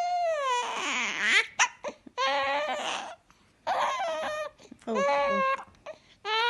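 One-week-old baby crying: about five high-pitched wails, each a second or so long, with short catches of breath between them.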